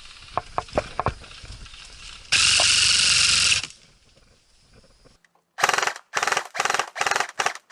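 Airsoft electric guns firing on full auto. A few sharp clicks are followed by one loud buzzing burst of about a second and a half, and then a string of short rapid-fire bursts in quick succession.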